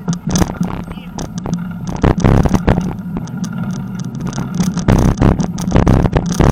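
Riding noise from a bicycle on a rough path: wind rumbling on the microphone, with the tyres on the surface and frequent sharp knocks and rattles from the bike jolting over bumps. It gets louder about two seconds in.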